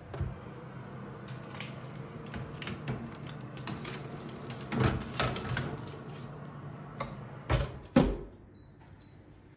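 A built-in fan oven's door being opened and a metal baking tray slid onto the rack with clicks and clatter, over a low steady hum; the door is shut with two thumps near the end, the second the loudest. Two faint short high beeps follow.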